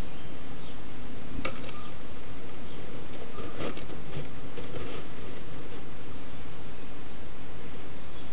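Steady hiss from a nest-box webcam microphone, with a few scratchy clicks and rustles of a wren moving against the nest and wooden box about a second and a half in and again around three to five seconds in. Faint high chirping sounds behind the hiss.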